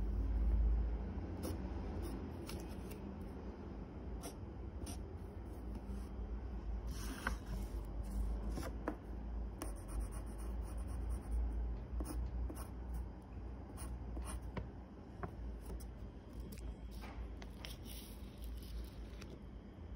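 Graphite pencil scratching on paper in short, irregular strokes, with scattered light taps, over a low steady rumble; the strokes stop near the end.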